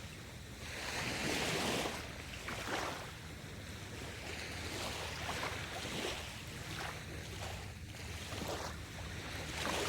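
Seaside ambience: waves washing in and wind, swelling about a second in.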